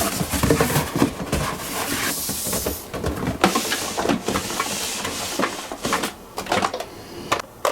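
Die-cast toy cars rolling down a slope, a continuous rattle with many quick clicks and knocks.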